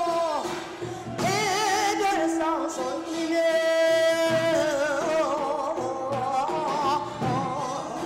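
A woman's solo voice singing a Korean shamanic ritual song (muga) for a fishing-luck gut, with long held notes, a wide wobbling vibrato, and phrases that slide downward at their ends.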